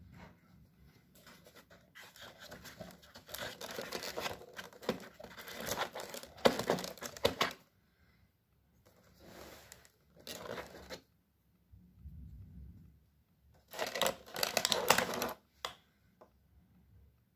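Plastic massage-gun attachment heads being pulled out of the foam insert of their box and handled, in several bursts of rustling and scraping, the longest in the first half.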